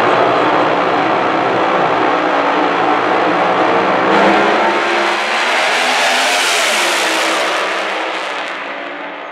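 Two drag-racing cars' engines running loud at the starting line, then launching about four seconds in and accelerating down the strip, the sound getting brighter and then fading as they pull away.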